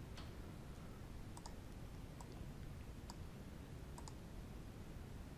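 Faint computer mouse clicks, about six scattered over a few seconds, some in quick pairs, against a low background hum.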